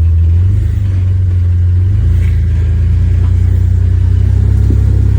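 Jeep Wrangler LJ's engine running at low revs while rock crawling, a steady deep rumble that eases off briefly about half a second in and picks up again near two seconds.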